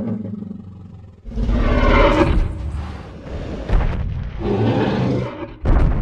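Dinosaur roar sound effects: a low growl, then a long loud roar starting about a second in, a second shorter roar near the end, and a sudden heavy low hit just before the end.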